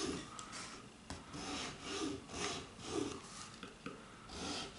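Small three-cornered file rasping in short, quiet strokes across the fret slots of a rosewood fingerboard, a couple of strokes to each slot. It is widening the tops of the slots into a V so the new frets will press in easily.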